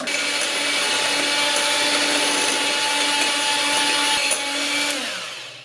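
Electric hand mixer running steadily, its beaters whipping egg whites to a foam in a glass bowl. Near the end the motor winds down, dropping in pitch as it is switched off.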